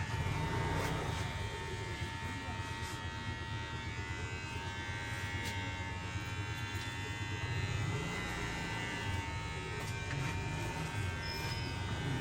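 A small electric motor buzzing steadily, with a few faint clicks now and then.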